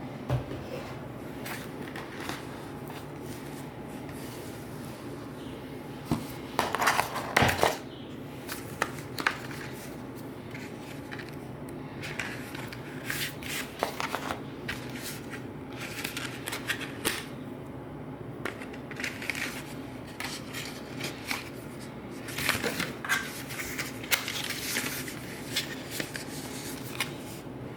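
Product packaging being handled and opened: irregular rustling, scraping and light clicks of cardboard and paper, with a louder burst of handling about seven seconds in and more frequent handling noises in the second half.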